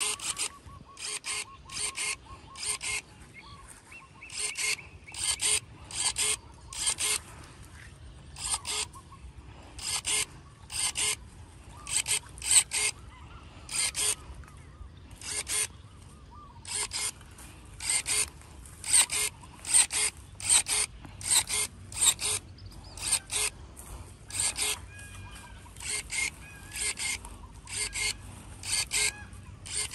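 Cordless 21-volt electric pruning shears cutting shrub twigs over and over: a string of short, sharp motor-driven snips, about one to two a second and often in quick pairs.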